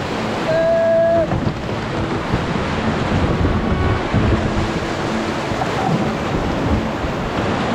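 Rushing whitewater of a river rapid churning and splashing around a kayak as it is paddled through, with wind buffeting the microphone. A short steady whistle-like tone sounds about half a second in.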